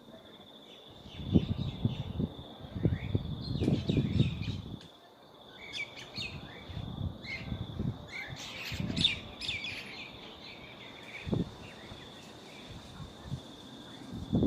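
Birds chirping and calling in quick clusters, busiest in the middle, over a steady high-pitched whine. Low buffeting on the microphone in the first few seconds.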